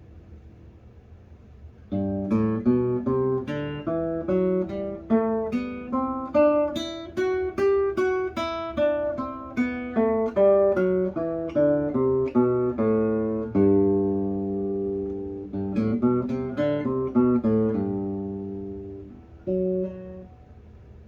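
1969 Checa acoustic guitar played as a sound demo: single plucked notes and arpeggiated chords in a short melodic passage that starts about two seconds in. Near the end it lets a couple of chords ring, then plays one last short note.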